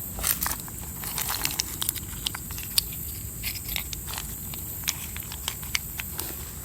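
Footsteps crunching over rough ground: a string of irregular crunches and clicks.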